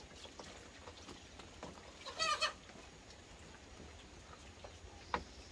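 A short, wavering farm-animal call about two seconds in, with a quavering pitch and lasting about half a second. Faint clinks of spoons on plates run under it.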